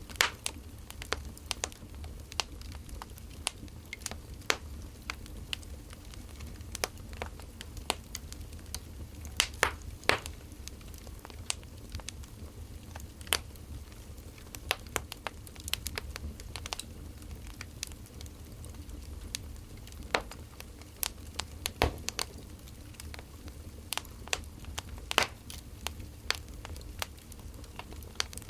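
Wood fire crackling: irregular sharp pops and snaps, a few louder than the rest, over a low steady rumble.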